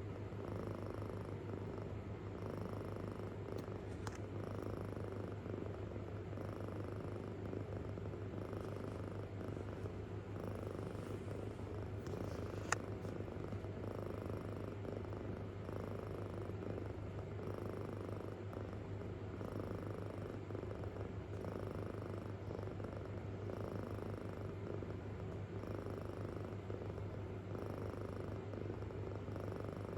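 A kitten purring deeply and continuously, the purr swelling and fading with each breath about every two seconds. A single sharp click about a third of the way in.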